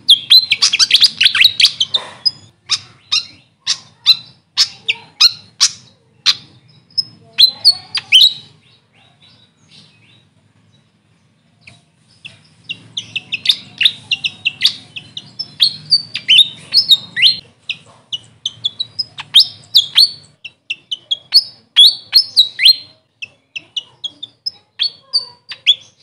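A fantail singing: quick runs of short, sharp, high squeaky notes, breaking off for a couple of seconds near the middle, then going on again thick and fast.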